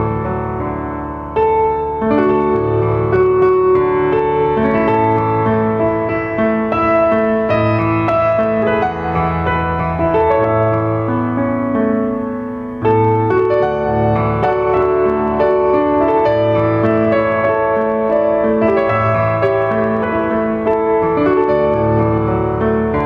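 Background piano music: sustained chords over a moving bass line, with a short drop in level about twelve seconds in.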